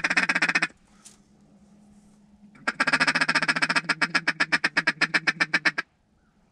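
Duck call blown in mallard-style quacking. A short loud burst of quacks comes first. After a pause of about two seconds, a longer run of fast chattering notes follows, slowing into separate quacks about eight a second before it stops.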